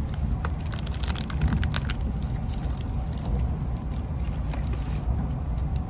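Steady low rumble of a Shinkansen train running, heard inside the passenger car, with a flurry of light crackling clicks over the first two seconds or so.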